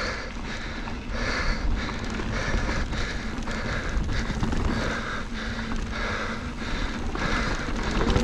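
A mountain biker's heavy, rhythmic breathing, about two breaths a second, over a steady rumble of wind on the microphone and tyres rolling over a dry dirt trail.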